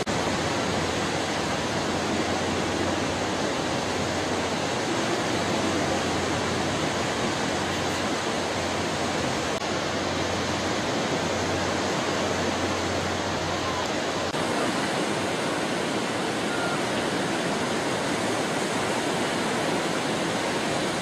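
Steady, even rushing noise of sea surf and wind at the shore.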